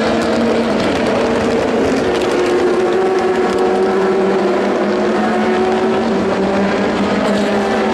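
Several sports-prototype race cars running at speed on a soaking wet circuit. Their engines hold a near-steady pitch, over a steady hiss of spray.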